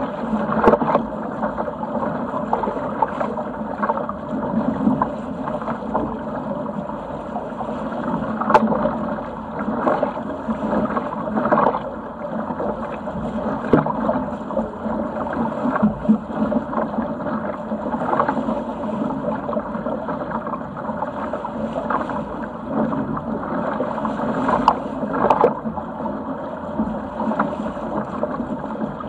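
Water rushing along and slapping against the hull of a Sigma 8 metre sailing yacht under way through choppy water, a steady wash broken by irregular sharper slaps every few seconds.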